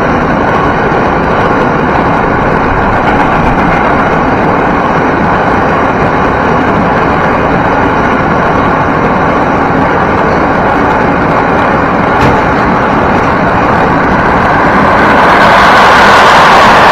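Freight train's wagons running through at speed on the nearest track: a loud, steady rush and rattle of steel wheels on the rails, getting louder and harsher near the end.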